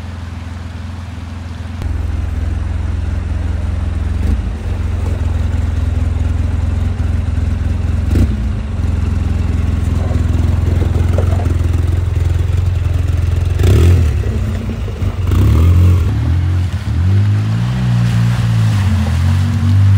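Vintage Willys Jeep truck's engine running steadily at low speed, stepping up in level about two seconds in, with a few short knocks or scrapes. Near the end the engine revs up and down repeatedly.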